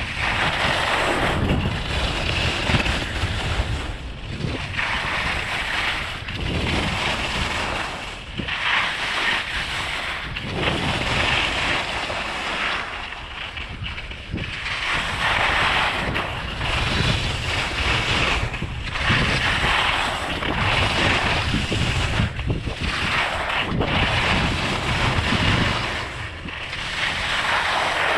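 Skis carving turns down a groomed piste, a scraping hiss that swells and fades with each turn, about every two seconds. Wind buffets the microphone underneath it.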